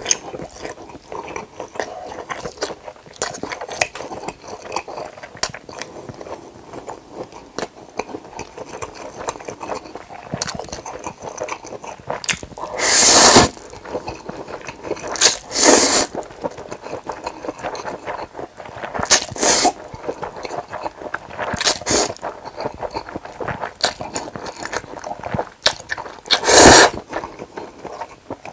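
Close-miked chewing of barbecued pork neck and spicy bibim noodles, with many small clicks, broken by about five loud slurps of noodles a few seconds apart.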